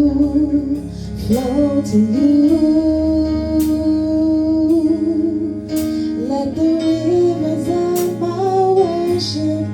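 A slow worship song: a woman's voice holding long sung notes over guitar accompaniment.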